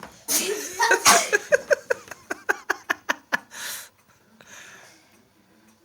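A sneeze, then a burst of laughter in quick pulses, about five a second, followed by another sharp breathy burst.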